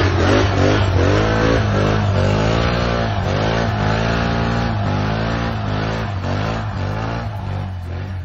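Can-Am Renegade ATV engine revving hard as it climbs a steep slope under load, its pitch rising and falling again and again with the throttle. The sound fades toward the end as the quad pulls away uphill.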